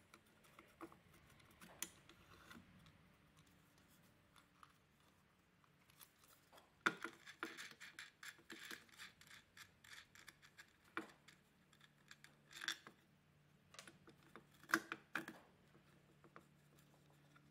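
Wing nuts being worked on the clamp studs and the wooden workpiece handled on the CNC bed: faint metallic clicks and scrapes, busiest from about seven to ten seconds in, with a few single clicks after.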